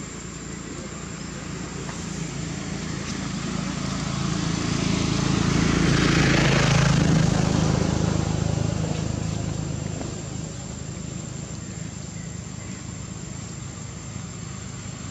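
A motor vehicle passing by: a low engine and road sound that swells slowly to its loudest near the middle, then fades away.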